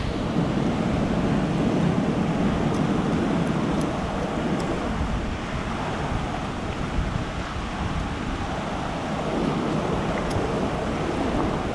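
Whitewater river rushing steadily over rocks, a constant even wash of water noise, with a few faint ticks.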